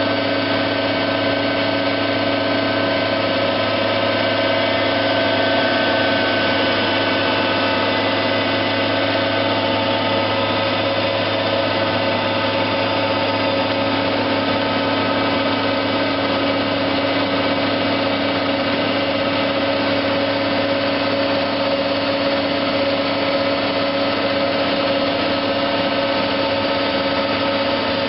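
HayBuster H1000 tub grinder running on a tractor's 1000 rpm PTO, with the tractor engine and the grinder's driveline making a steady mechanical drone. Several steady whining tones sit over it, and nothing changes in speed or load.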